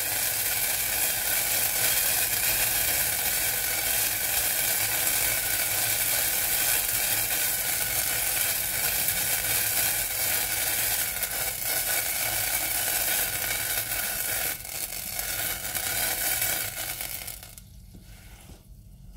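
Butter, onion and brandy sauce base sizzling hard in a saucepan on an induction hob just after being flambéed, a steady frying hiss. The sizzle falls away quickly a couple of seconds before the end as the pan is lifted off the heat.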